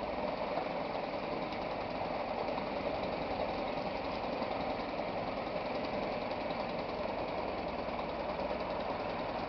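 Suzuki 2 hp two-stroke outboard motor running steadily, its leg in a test bucket.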